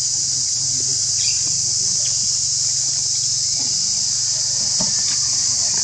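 Steady, loud, high-pitched insect chorus that does not let up, over a low steady hum, with a few faint rustles and light knocks.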